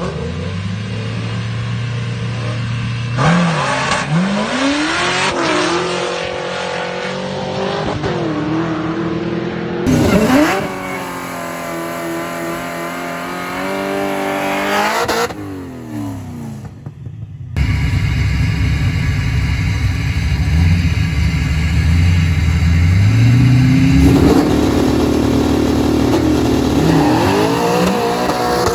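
Supercharged LS3 V8 of a Pontiac GTO idling and revving hard, its pitch rising and falling again and again. In the middle it is held at high revs through a burnout. The sound comes in several short cuts.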